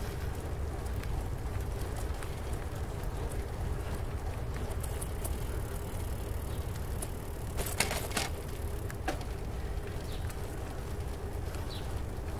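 Ride noise from a bicycle on the move: a steady low rumble of wind on the camera microphone and rolling tyres, with a short cluster of clicks and rattles about eight seconds in.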